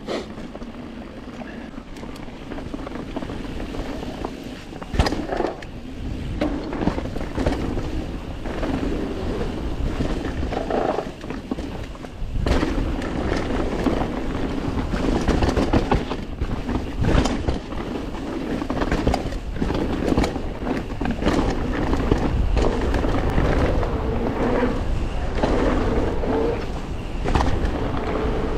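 Mountain bike riding down a dirt bike-park trail: tyres rolling over the dirt with wind rush on the microphone, and frequent rattles and knocks as the bike hits bumps. The rush grows louder over the first dozen seconds as speed builds.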